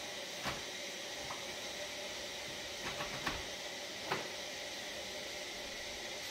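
Four light knocks of metal baking trays set against each other as an upside-down tray is laid over the bread pan to turn the loaf out, over a steady background hiss.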